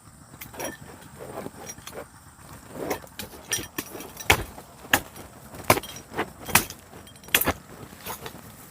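A hand tool repeatedly striking earth and roots while digging up cassava: about nine sharp hits, roughly one a second, the later ones louder.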